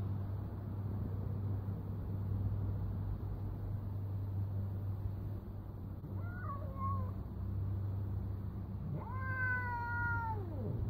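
Cat calling during a standoff between two cats: a short wavering call about six seconds in, then one longer call near the end that holds level and drops in pitch as it stops, a warning between the two. A steady low hum runs underneath.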